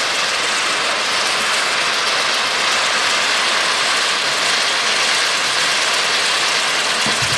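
Dominator Helix spinning fountain firework burning with a steady hiss.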